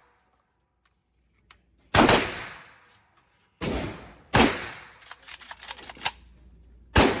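Four gunshots, about two seconds in, then a second and a half later, again just after, and once more near the end, each with a short echoing tail. Between the last two shots come several small light clicks.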